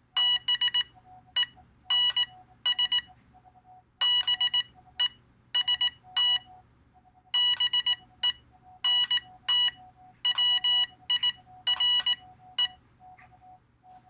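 Morse code side tone from a USB Morse keyboard adapter keyed by an iambic paddle: clusters of short, buzzy beeps of dits and dahs, one cluster per letter with gaps between, spelling out 'bens best bent wire' as each letter is typed into the computer.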